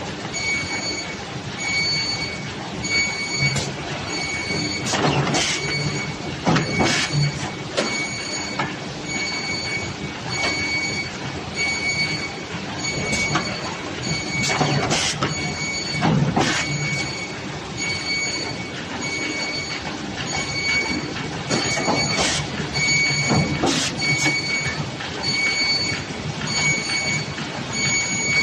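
Three-knife trimmer running: a steady mechanical hum with a high tone pulsing on and off, and pairs of sharp strokes about a second and a half apart that come round roughly every eight seconds as the machine cycles through its cuts.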